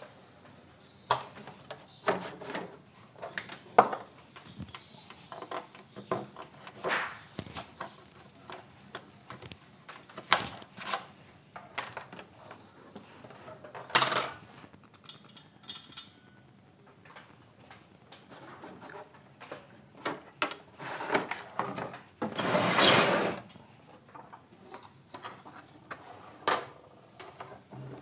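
Handling of a CRT television's main circuit board and plastic chassis: irregular clicks, knocks and rattles as the board and its wiring are moved. A longer rustling scrape comes about three quarters of the way through.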